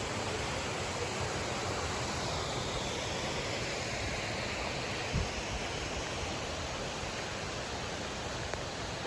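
Waterfall rushing: a steady, even roar of falling water, with one small thump about five seconds in.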